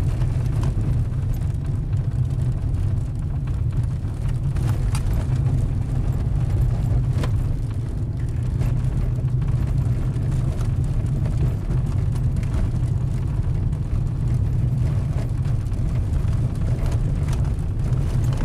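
Inside the cabin of a 1996 Mercury Mystique driving along a gravel road: a steady low rumble of engine and tyres, with a few faint clicks from the road surface.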